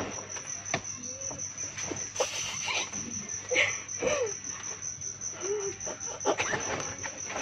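A cricket chirping in a steady, rapid high pulse of about six chirps a second, with scattered clicks and short rustles over it.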